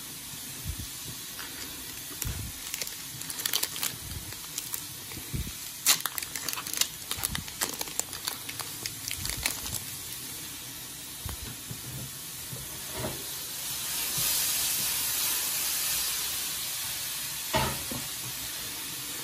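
Foil booster-pack wrapper crinkling and trading cards being handled: a run of quick crackles and clicks, then a longer smooth rustle about two-thirds of the way through.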